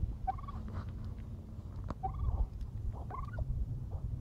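A white domestic turkey tom calling in three short bursts, near the start, about two seconds in and about three seconds in, over a low rumble.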